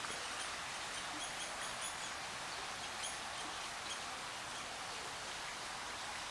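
Steady rush of water from a garden pond waterfall, with a small bird chirping a quick series of short high notes in the first two seconds and a few more about three seconds in.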